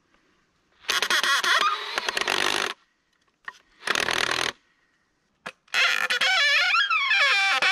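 Power drill driving wood screws into pine, in three runs, the last one the longest, its whine falling in pitch near the end.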